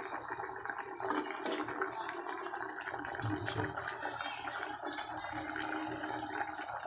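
Vinegar broth of paksiw na bangus simmering in an open pot on a gas stove, a steady crackle of many small bubbles as it comes up to the boil.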